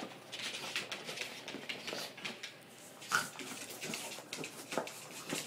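A West Highland White Terrier playing with a toy ball on a tile floor: irregular clicks, scuffs and knocks of the ball and the dog on the tiles, with small dog sounds mixed in.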